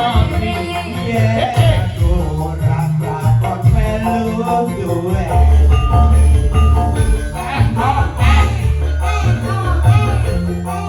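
Band music with a heavy bass beat, a melody line and jingling shaken percussion.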